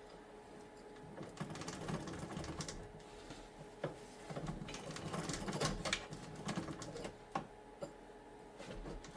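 Steel number 41 roller chain clinking and rattling as it is handled and worked into place by hand, irregular clicks and rattles starting about a second in, with a few sharper ticks.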